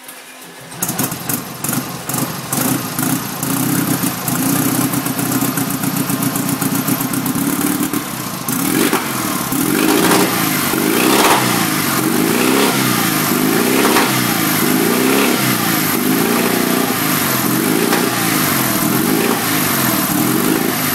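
Freshly built Steyr Puch 750 air-cooled flat-twin engine on its first start: it catches about a second in, runs raggedly for a few seconds, then settles. From about eight seconds in the throttle is blipped over and over, the revs rising and falling every second or so.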